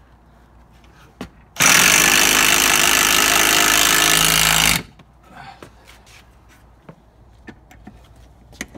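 RIDGID cordless impact driver hammering a screw through a wooden strip, starting about a second and a half in and running for about three seconds before stopping. A few light clicks of handling follow.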